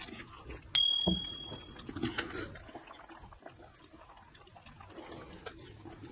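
Sharp metallic clink on stainless steel tableware about a second in, ringing briefly with a clear high tone, amid faint clicks of chopsticks and soft eating sounds at the table.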